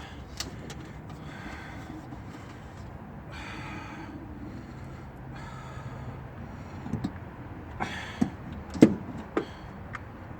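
Metal clunks and knocks as a distributor is worked by hand into its bore in the engine block, trying to seat on its drive. A cluster of sharp knocks comes in the last few seconds, the loudest about nine seconds in.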